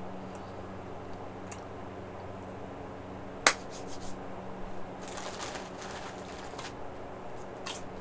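A sharp computer-mouse click about three and a half seconds in, then scattered short clicks and crackling, over a steady low hum.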